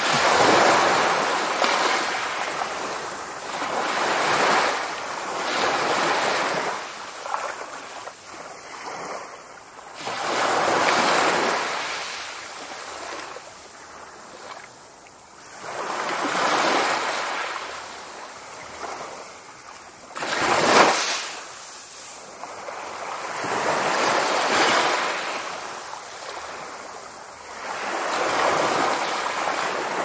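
Small waves washing up onto a sandy beach and draining back, the hiss of each wash rising and falling every three to four seconds. A sharper, louder wash comes about two-thirds of the way through.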